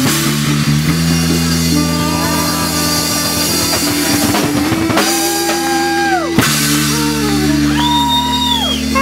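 Live jam band playing: saxophone, electric bass and drum kit with hand percussion over a steady groove. A long held high note in the middle falls away sharply, and another is held near the end.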